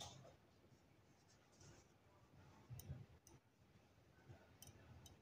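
Near silence with faint handling sounds: a few soft clicks and rustles as a plastic yarn needle is worked through knitted yarn to sew a seam.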